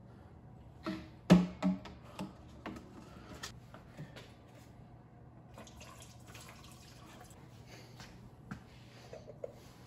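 A metal camshaft lowered into an upright ABS plastic drain pipe, knocking against it with several ringing clanks in the first few seconds, the loudest just over a second in. Later, liquid poured from a jug into the pipe, a soft splashing.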